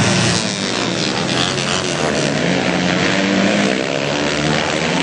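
Flat-track racing motorcycles' engines running hard together on the dirt oval, a loud, continuous drone of several engine notes wavering up and down as the riders work the throttle.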